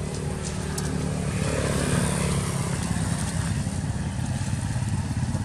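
Motorbike engine running as it passes along the road, the sound swelling to its loudest about two seconds in and then easing off, over a steady low engine hum.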